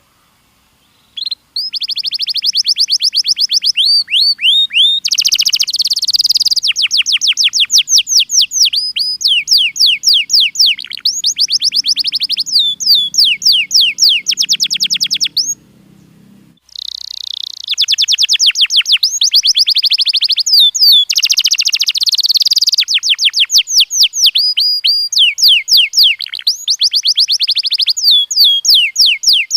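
Domestic canary singing: long rolls of rapidly repeated whistled notes and trills, changing tempo from phrase to phrase. The song starts about a second and a half in and stops briefly about halfway through before resuming.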